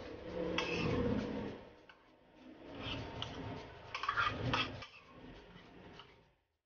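Spoon and fork clinking and scraping on plates during a meal, in short scattered bursts. The sound cuts out completely near the end.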